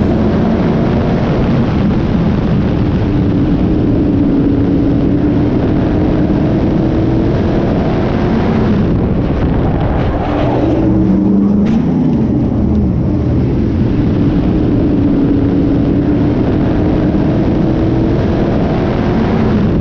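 SK Light modified race car engine running hard at speed, heard from a camera mounted on the car, over steady rushing noise. About halfway through, the engine pitch dips and climbs again.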